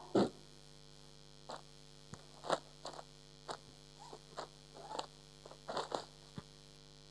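Steady low electrical mains hum, with scattered faint rustles and light taps from a blanket in a clear plastic-fronted zip bag being handled and from steps on a tile floor.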